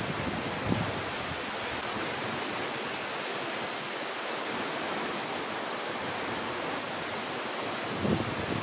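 Steady, even rush of a large waterfall, with a few low gusts of wind hitting the microphone, mostly near the end.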